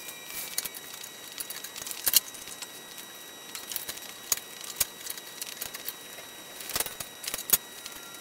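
Rustling and scattered light clicks and taps as a thick nylon tow strap is handled and wrapped around the pusher fan's metal frame and stand, with a sharper knock about two seconds in and another near the end.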